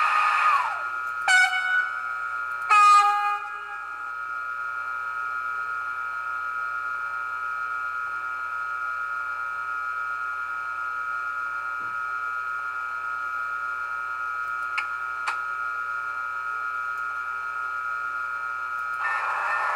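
Sound decoder of a model BLS Re 475 Vectron electric locomotive through its small speaker: the running noise winds down with a falling tone, then two short horn blasts, the second lower in pitch. After that comes a steady electric hum of the standing locomotive with a couple of faint clicks, and the running noise rises again near the end.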